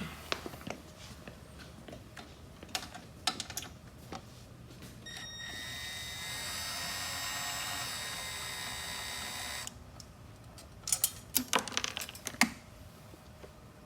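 Small handheld power driver running for about four and a half seconds as a screw is backed out, a steady whine that starts about five seconds in and stops abruptly. Scattered clicks of tool and screw handling come before it, and a quick run of sharp clicks follows.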